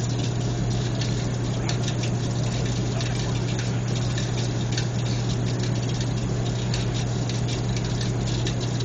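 An engine running steadily: a constant low hum with a light, irregular patter of clicks over it.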